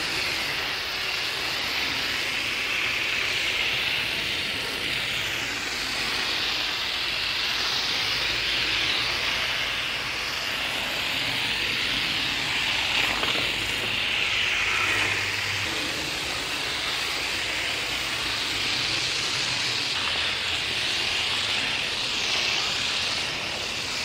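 Garden hose spray hissing steadily as the water stream hits an air-conditioner condenser coil, rinsing the coil cleaner out of the fins.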